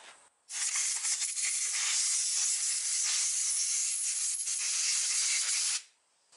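Compressed-air blow gun hissing as air is blown through an RB25DET oil squirter (piston cooling jet) to clear its oil passage. The hiss starts suddenly about half a second in and cuts off sharply near the end.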